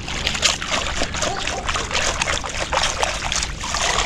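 Water and wet sand splashing and trickling through a perforated metal sand scoop as it is worked in shallow lake water and lifted out with mud inside, a dense patter of small splashes and clicks.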